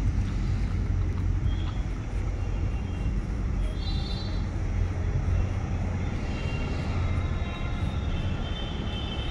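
Steady low rumble of outdoor background noise, with faint, short high chirps now and then.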